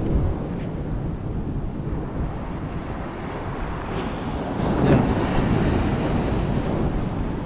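Surf breaking and washing up the beach, mixed with wind buffeting the microphone; the rush swells louder about five seconds in.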